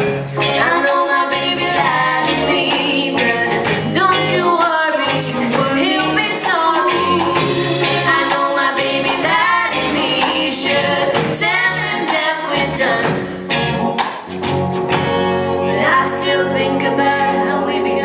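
Live pop-rock band playing: a female lead voice sings over electric guitar, bass guitar, drums with cymbal hits, and an organ-sounding synthesizer.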